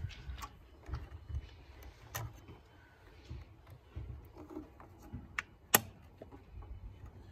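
Scattered clicks and knocks of hand tools and the plastic coolant reservoir and hose being handled in a car's engine bay, with one sharper knock about three quarters of the way through.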